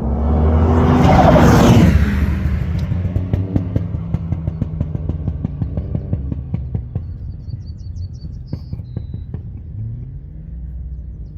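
Race car passing at full throttle, then lifting off, its exhaust popping and banging in a long run of sharp irregular cracks as it slows past the finish.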